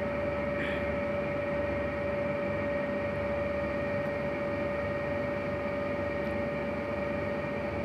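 Steady background hum with a constant mid-pitched whine over an even noise, unchanging throughout, with no distinct events.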